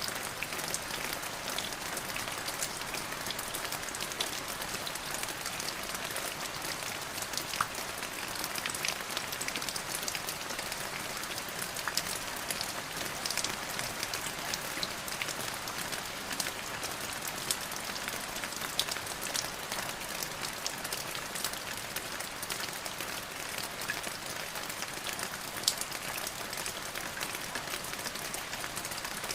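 Steady rain falling, an even hiss with many scattered drop ticks.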